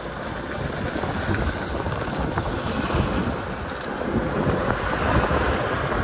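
Diesel engine of an articulated lorry running as the truck manoeuvres slowly, with wind buffeting the microphone.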